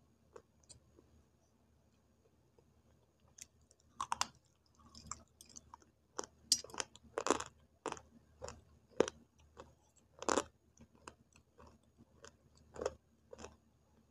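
Biting and chewing dry multani mitti (Fuller's earth) clay sticks, a series of crisp, irregular crunches. A few faint clicks come first, then from about four seconds in a busy run of crunches, the loudest in the middle.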